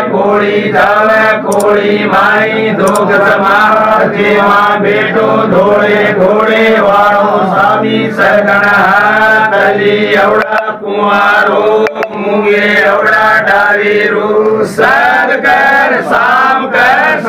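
Men chanting a ritual song, a continuous wavering sung melody with only short breaks for breath.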